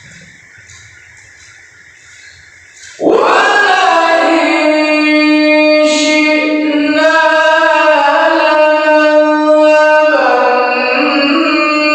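Quran recitation by a male qari: after a few seconds of quiet, a loud, high-pitched voice starts a melodic phrase about three seconds in and holds long notes that bend and waver.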